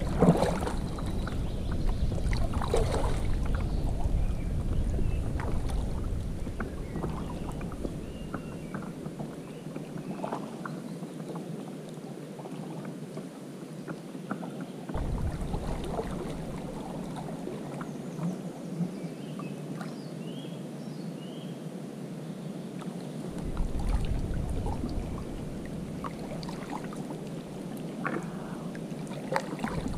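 Kayak paddle strokes in river water: irregular splashes and drips. A low rumble of wind on the microphone comes and goes.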